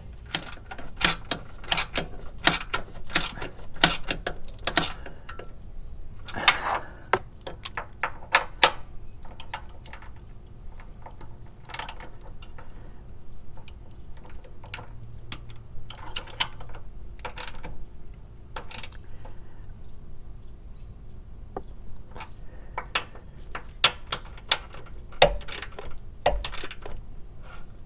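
Hand ratchet on a socket extension clicking, with metal tools and parts clinking, in irregular bunches with short pauses, as the upper mount of a new Bilstein shock absorber is tightened.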